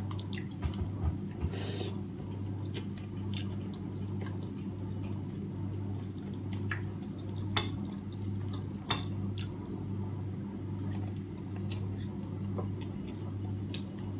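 Close-up eating sounds: fingers picking apart steamed fish on a plate, with chewing and scattered sharp clicks, over a steady low hum.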